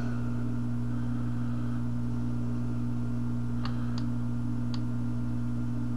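Steady low electrical mains hum, with a few faint light ticks around the middle, while a soldering iron tip is worked on a small surface-mount chip's leads.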